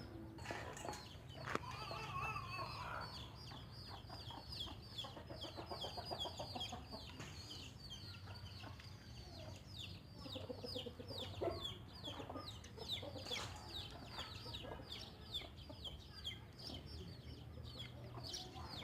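Chickens clucking, with a continuous string of short high chirps falling in pitch.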